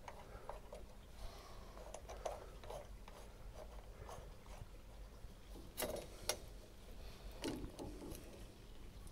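Faint clicks, taps and rubbing as hands work metal pipe fittings and a valve on copper pipework, with two sharper clicks about six seconds in.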